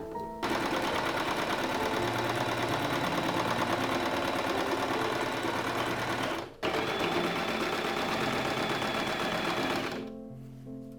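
Electric sewing machine stitching in a fast, steady run. It pauses briefly about two-thirds of the way through, runs again, then stops near the end. Soft background music plays underneath.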